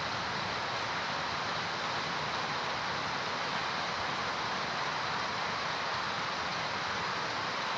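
Heavy rain falling steadily on trees and foliage, an even unbroken hiss.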